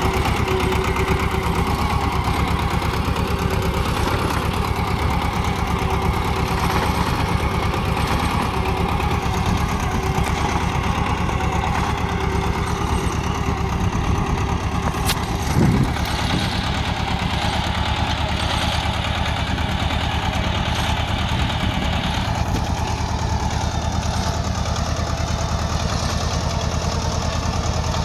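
Swaraj 724 FE 4WD tractor's two-cylinder diesel engine running steadily while pulling a cultivator through the soil. There is one brief thump about halfway through.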